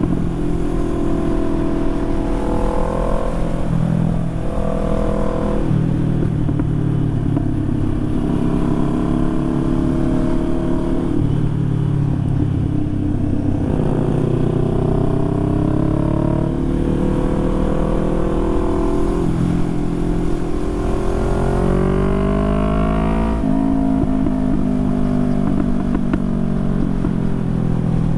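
Motorcycle engine running on the road, its note climbing as it accelerates and dropping back at each gear change.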